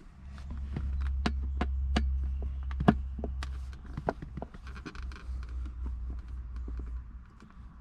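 Sharp, irregular clicks and knocks of a screwdriver working T15 Torx screws out of a center console lid, loudest about three seconds in, over a steady low rumble.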